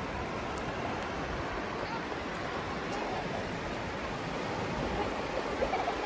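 Small waves and the backwash of seawater washing over a flat, gently sloping sandy beach: a steady, even wash of surf.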